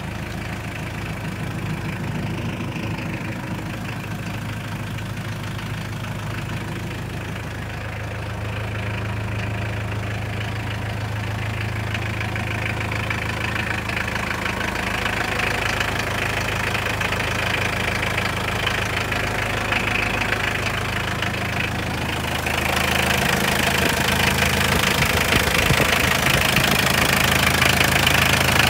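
Mitsubishi Canter truck's diesel engine idling steadily with a knocking diesel clatter. The clatter grows louder and brighter about three-quarters of the way through, heard close up at the open engine bay.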